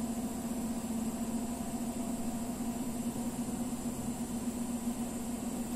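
A 3D printer running in the room, giving off a steady low mechanical hum at a constant pitch, with a faint hiss over it.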